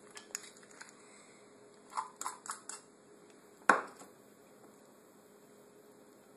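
Thick cake batter being scraped out of one ceramic bowl into another with a utensil. There are light clicks, then a quick run of scrapes and taps on the bowl about two seconds in. One sharp knock, the loudest sound, follows a little later.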